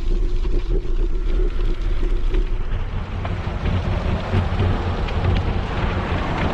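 Wind buffeting an action camera's microphone as a bicycle rides along a dirt path, with the tyres rolling over grit and gravel. The rough hiss grows fuller about halfway through.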